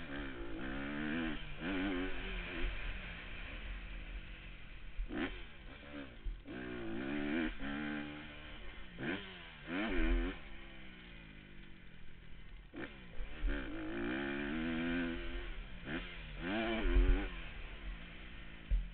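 Motocross dirt bike engine revving hard and backing off again and again, its pitch climbing and falling in quick sweeps as the bike is ridden around a dirt track. A few loud low thumps come through, the strongest about halfway and near the end.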